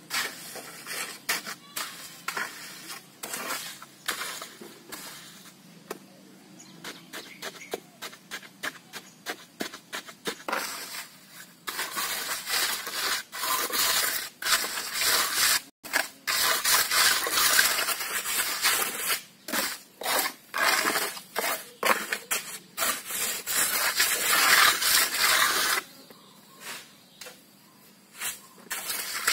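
Steel trowel scraping and smoothing wet sand-cement mix packed into a concrete-block mold, in repeated short strokes. The strokes grow louder and closer together about halfway through, then ease off near the end.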